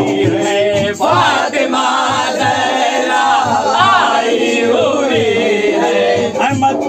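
A group of men singing a devotional chant in chorus through a microphone, several wavering voices together over a regular low beat.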